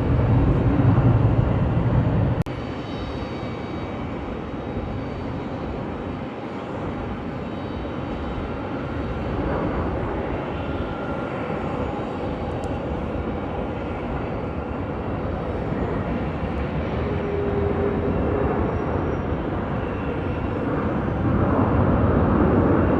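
Jet airliner engine noise heard across an airfield: a steady, noisy rush. It drops off abruptly about two and a half seconds in, swells a little a few times, and grows louder again near the end.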